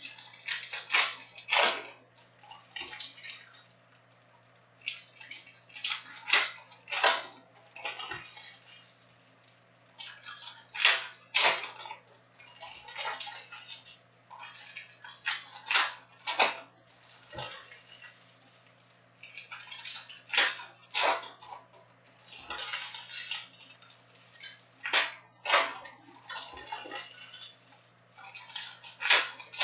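Topps Chrome trading card packs being opened and handled by hand: wrappers crinkling and tearing and cards sliding against each other, in short bursts every few seconds.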